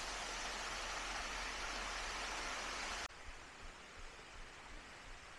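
Steady rush of water from a small waterfall, cutting off abruptly about three seconds in and leaving a much quieter hiss with faint rustling.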